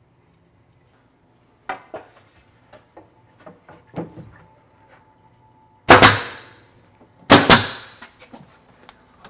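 Nail gun firing twice, each shot a sharp double crack with a short hissing tail, as face-frame trim is nailed to the plywood cabinet. Before the shots come a few light knocks as the trim is set in place.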